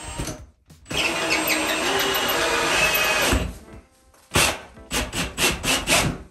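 Cordless drill spinning a 4-inch hole saw through a drywall ceiling: a steady cutting run of about two and a half seconds, then several short bursts near the end.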